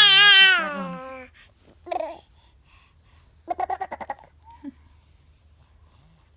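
A 10-month-old baby's voice: a loud, high-pitched, wavering squeal in the first second, a short vocal sound about two seconds in, then a quick run of short babbled syllables a little later.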